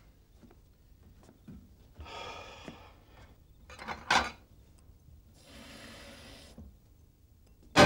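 Kitchen sink tap running in short spurts, with light clinks and knocks of dishes, then a sudden loud crash of breaking glass at the very end.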